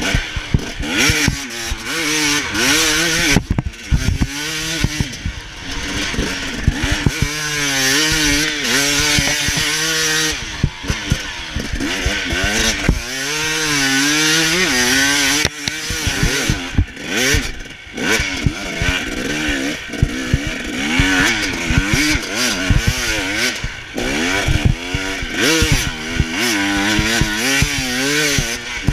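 Motocross bike engine heard from on board while riding on dirt and sand, revving up and dropping back again and again as the throttle is opened and closed.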